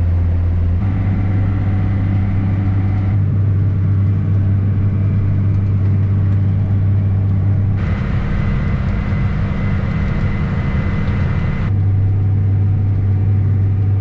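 Farm tractor's engine running steadily under load while it pulls a harrow, a low drone. Its tone changes abruptly several times.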